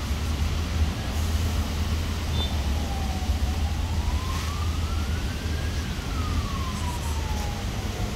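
A faint emergency-vehicle siren wailing, its pitch sliding slowly up and down, starting about three seconds in, over a steady low rumble.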